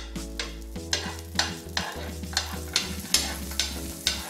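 Butter sizzling as it melts on a hot nonstick tawa, with a spoon spreading it around the pan in short scraping strokes, about three a second.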